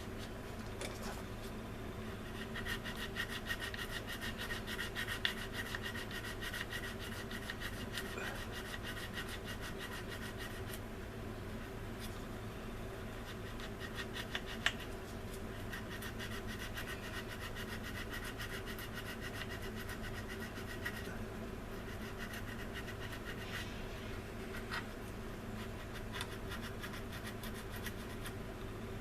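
Sanding stick scraping back and forth in fast strokes over a glued seam on a styrene plastic model wing, in two long spells, working the cyanoacrylate glue and sanding dust down flush. A steady low hum runs underneath.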